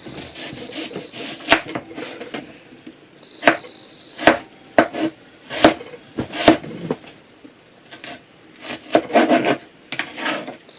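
Knife chopping a red onion on a cutting board: irregular sharp knocks of the blade on the board, some much louder than others, with softer scraping between them.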